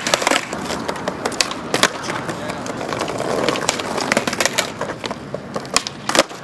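Skateboards on paving slabs: wheels rolling with a rough grinding noise, and tails popping and decks clacking down as flatground flip tricks are tried, with a quick run of sharp clacks near the end.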